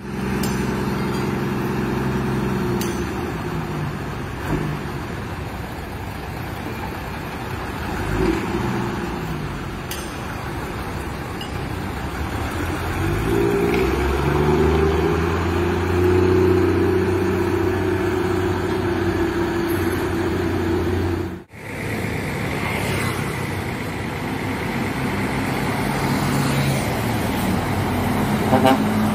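Bus engines through loud modified exhausts, revving, with the pitch rising and falling and then holding steady. About two-thirds of the way through, the sound cuts out abruptly and another bus exhaust takes over, climbing in pitch toward the end.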